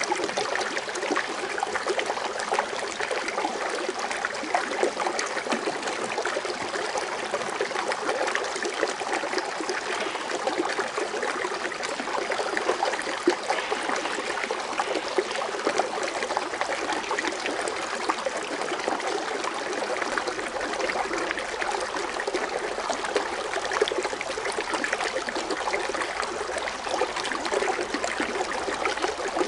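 Foaming water fountain splashing and trickling steadily, an even rush of water with fine, constantly flickering splashes and no change in strength.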